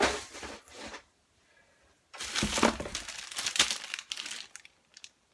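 Clear plastic bag crinkling as it is handled: a short rustle at the start, a brief pause, then about two and a half seconds of continuous crinkling.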